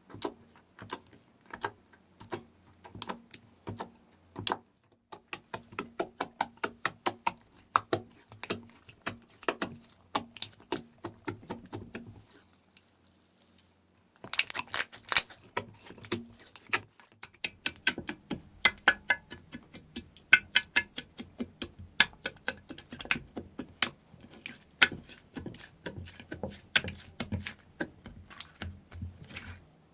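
Slime being squeezed and kneaded by hand, making rapid sticky clicks and pops. The clicking stops for about two seconds after about twelve seconds, then starts again.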